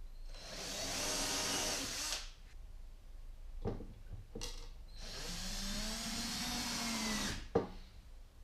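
Cordless power drill run twice, about two seconds each time, its motor whine speeding up then slowing. Short clicks come between the runs and a sharp knock near the end.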